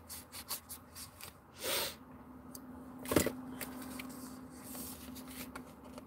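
Light rustling and small clicks of a boxed makeup palette's packaging being handled, with one sharper click about three seconds in.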